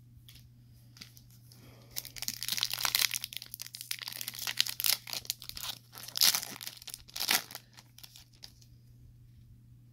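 Foil trading-card pack being torn open and its wrapper crinkled, a dense run of crackling tears from about two seconds in until past seven seconds.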